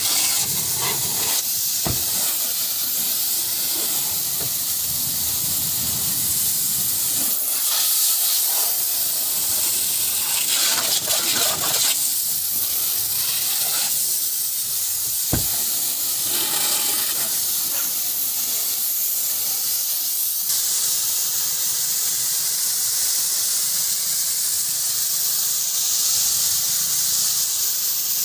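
Pressure washer jet spraying water into a car's open door frames and over its body and the wet ground: a steady hiss.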